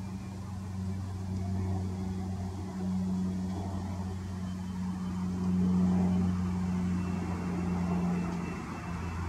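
Boeing 777 twin jet engines during touchdown and landing rollout: a broad rushing roar over a steady low hum. The noise swells to its loudest a little past halfway and eases near the end.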